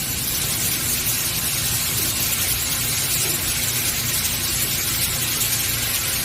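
Steady machine hiss with a low hum underneath, from a robotic laser welding setup, with no distinct knocks or changes.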